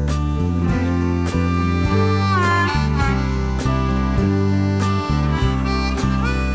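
Background music: a harmonica lead with a bent, sliding note about two seconds in, over a bass line and a steady drum beat.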